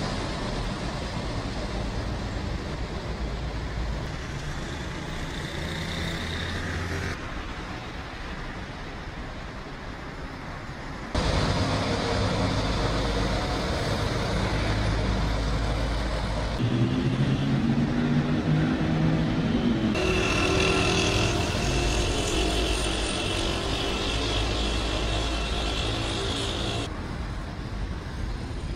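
Road traffic: vehicle engines and tyre noise, in several segments that change abruptly from one to the next. A little past halfway an engine note shifts in pitch for a few seconds, then a steady high whine sits over the traffic for several seconds.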